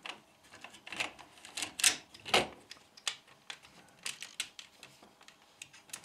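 Irregular clicks and rattles of a vacuum cleaner's plastic cable-reel spool being handled as the power cord is worked out of it, with the sharpest couple of knocks about two seconds in.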